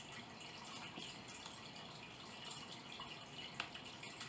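Quiet eating sounds: a few soft clicks of a fork against the food and dish, one sharper click near the end, over faint room noise.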